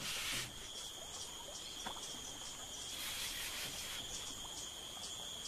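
Steady high-pitched chirring of insects in tropical forest, a continuous high tone with a fainter higher one above it. A short hiss of noise right at the start.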